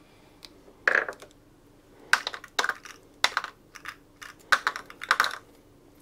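Small metal engine parts clinking and clattering as they are handled and set down on a workbench: a string of sharp, short metallic clicks in irregular clusters.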